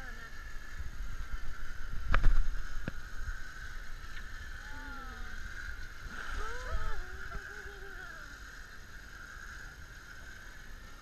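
Elephants wading through a river, with water sloshing and swirling around their legs and low rumble on the microphone. A loud knock comes about two seconds in, and faint voices are heard in the middle.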